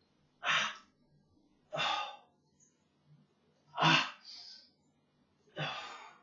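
A man's short, hard breaths under exertion during a bodyweight exercise set: four of them, about two seconds apart, one with each repetition, the third the loudest.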